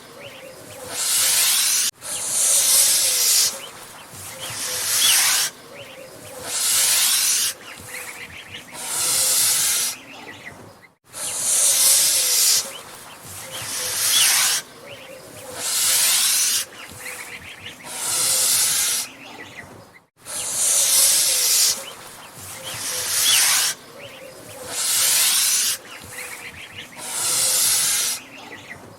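An angry goose hissing: long, breathy hisses repeated about every two seconds.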